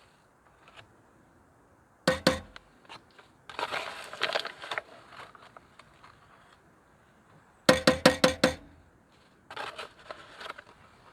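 Handling sounds: sharp knocks, twice about two seconds in and then a quick run of five or six near eight seconds, between stretches of crinkly rustling.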